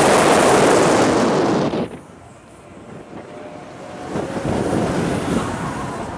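Loud rush of wind over the microphone of a camera riding a fast-swinging fairground thrill ride, cutting off suddenly about two seconds in. A quieter, mixed background follows.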